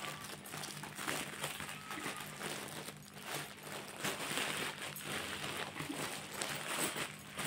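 Clear plastic packaging bag rustling and crinkling as it is handled and opened by hand, with irregular crackles.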